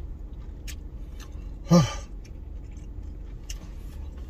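Eating sounds: faint clicks of a utensil and chewing over a steady low hum, broken about two seconds in by one short, loud, falling "mm" of enjoyment from the eater.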